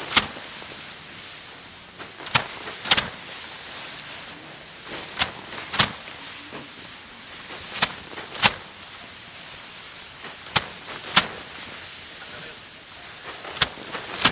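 Bundles of cut rice being threshed by hand, slammed against a threshing board to knock the grain loose. Sharp whacks come in pairs about half a second apart, a pair every two to three seconds, over a steady hiss.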